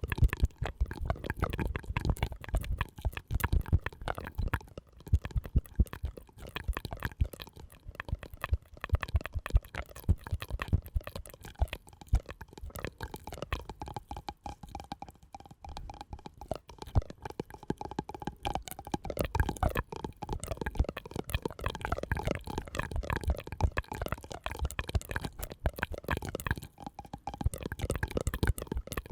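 Close-miked ASMR trigger sounds: a dense run of soft clicks and wet pops, with a faint held tone for a few seconds around the middle.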